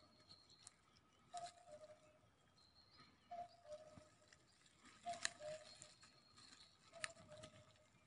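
Faint woodland birdsong: a bird repeats a short two-note call, the second note lower, four times about two seconds apart. A thin high whistle from another bird and a few faint clicks come and go.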